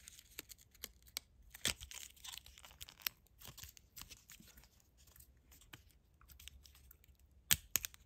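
Clear plastic blister packaging being worked apart by hand: irregular crinkling and crackling with a few sharp clicks, the sharpest near the end.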